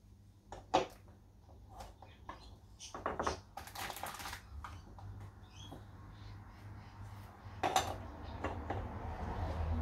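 Light knocks and clicks with short stretches of rustling as a small wooden box is handled and rummaged through, with one sharper click about eight seconds in.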